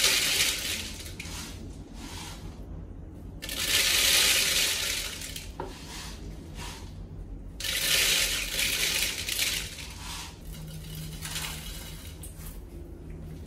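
Dry grain poured into a large plastic water jug, rattling and pattering against the plastic. It comes in three pours: the first is already under way and ends about a second in, and the others start about four and eight seconds in.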